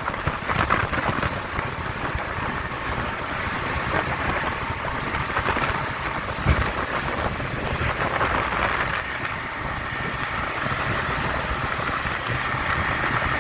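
Motorboat running over the sea: engine drone mixed with rushing water and wind buffeting the microphone, with a single sharp thump about six and a half seconds in.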